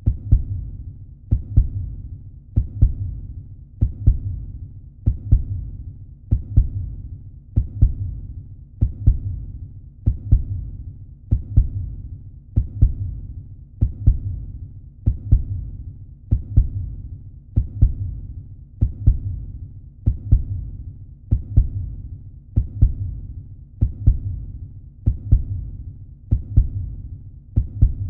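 Heartbeat sound effect: a slow, steady double thud, lub-dub, repeating about every one and a quarter seconds, low and deep, without speeding up.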